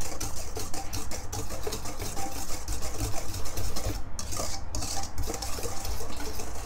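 Wire whisk beating a thin egg mixture in a stainless steel bowl: a steady, rapid clatter and scrape of the wires against the metal bowl with liquid sloshing.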